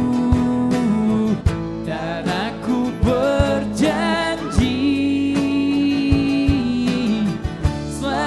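Pop-rock band playing live: strummed acoustic guitars, electric bass and drums under a sung vocal line with long held notes.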